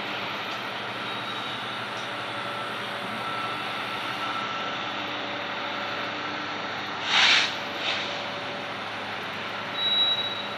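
Freight train rolling past at a distance: a steady noise of the cars on the rails with faint tones coming and going. A short loud burst of noise about seven seconds in, and another brief rise near the end.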